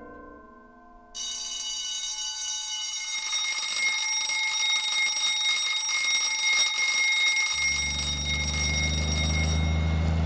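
Alarm clock ringing, a steady bell ring that starts about a second in and stops near the end. A low, steady school bus engine hum comes in toward the end.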